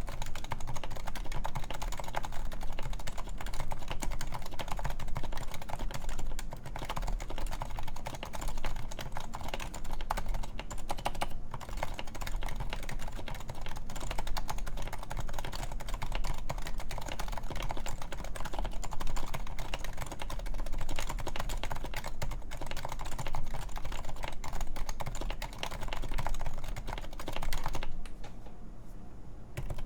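Steady, rapid typing on a Topre Realforce 104UB keyboard with 45 g electrocapacitive Topre switches, silenced sliders and lubed stabilizers. The keystrokes stop briefly near the end, then resume.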